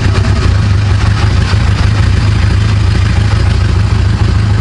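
2003 Honda Rebel 250's air-cooled parallel-twin engine running steadily just after starting. It fires and runs now that the blown fuse has been replaced.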